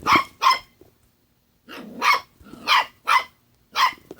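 Puppy barking: two quick barks, a short pause, then four more spaced about half a second apart.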